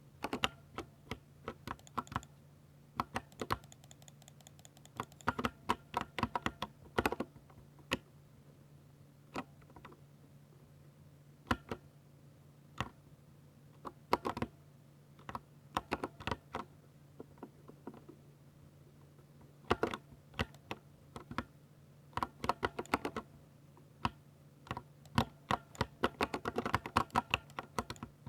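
Typing on a Ducky 60% mechanical keyboard with linear silver switches: keystrokes come in uneven bursts with short pauses, and the fastest, densest flurry comes near the end. A steady low hum runs underneath.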